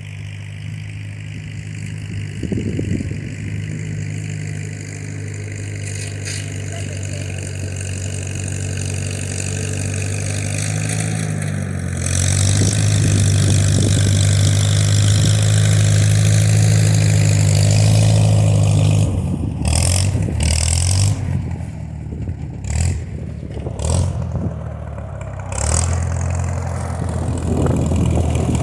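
A vehicle engine running at a steady pitch. It grows louder about twelve seconds in and holds there for about seven seconds as it works to drag a fallen pine tree off the road, then drops back.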